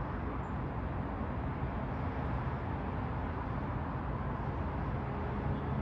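Steady low rumble of distant road traffic with city hum, no distinct events.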